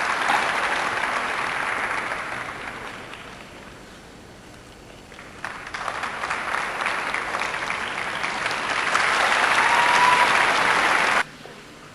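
Arena audience applauding. It dies away a few seconds in, swells again about five seconds in, is loudest near the end, then cuts off suddenly.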